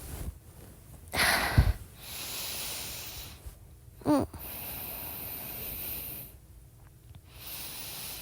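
A woman breathing slowly and audibly close to a phone microphone, in long hissing breaths. About a second in there is a rustling bump as she moves against the microphone, and about four seconds in a short hummed "mm" that falls in pitch.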